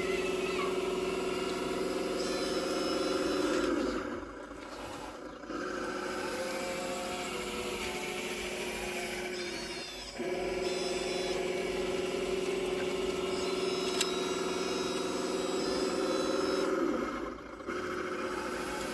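Steady electric whine of a radio-controlled construction model's motors at work, dropping out briefly about four seconds in, again around ten seconds in, and near the end. A single sharp click about fourteen seconds in.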